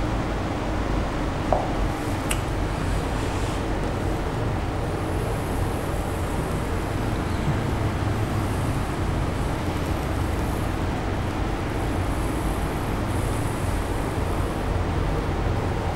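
Steady background noise with a marker stroking across a glass writing board, faint squeaks of the marker over the hiss, and a single click about two seconds in.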